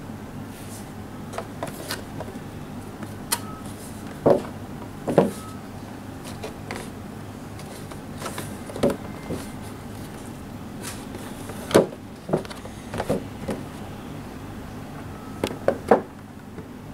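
Cardboard toy box with a clear plastic window being handled and turned over in the hands: scattered short knocks, taps and crackles of cardboard and plastic, over a steady low hum.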